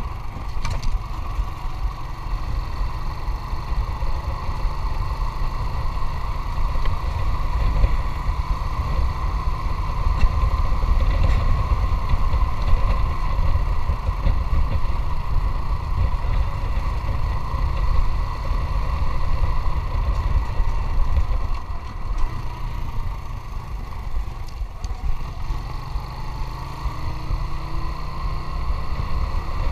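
Motorcycle engine running steadily while being ridden, with a strong low rumble.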